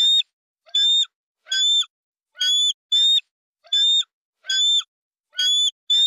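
An eagle calling: a short, high-pitched call repeated at a steady pace, about eight times, each with a faint low falling tail.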